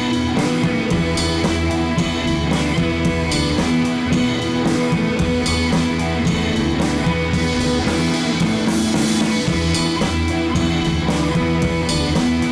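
Background rock music with guitar and drums, keeping a steady beat.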